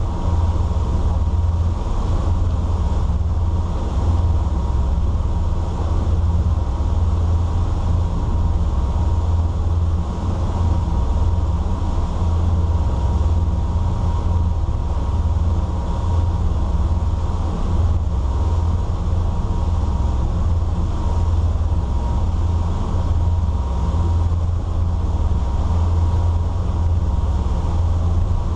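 A 2000 Sea Ray 340 cruiser's twin inboard engines running steadily under way, a deep constant drone with hull and water rush, heard from inside the enclosed helm. A faint steady high whine sits on top.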